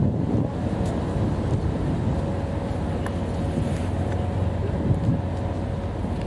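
Wind buffeting the microphone on a ship's open deck, over a steady low machinery hum; a faint thin steady tone comes in about two seconds in.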